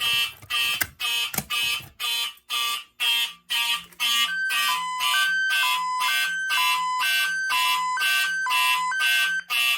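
Fire alarm notification appliances sounding the evacuation signal after a manual pull station has been activated: a horn tone pulsing about twice a second. About four seconds in, a second signal joins, alternating between a high and a low pitch.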